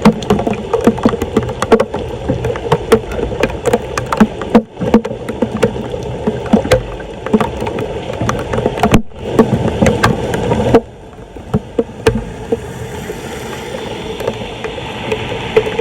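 Flood water splashing and sloshing around a storm drain being cleared, with frequent sharp knocks and clatters. It cuts off abruptly several times, and over the last few seconds it is quieter and smoother.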